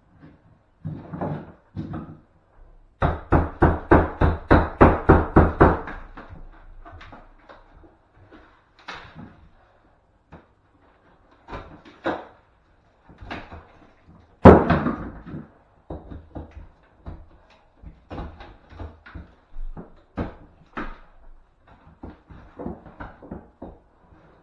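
Old bathroom wall being knocked and stripped off with hand tools: a fast run of about a dozen blows, some four a second, a few seconds in, one heavy strike near the middle, and scattered lighter knocks in between.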